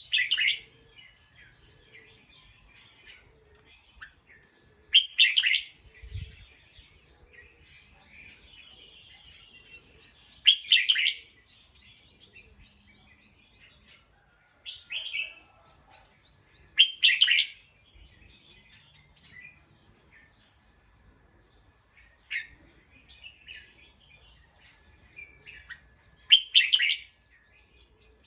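Bulbul calling: short, loud chirping phrases repeated about every five seconds, with softer chirps in between.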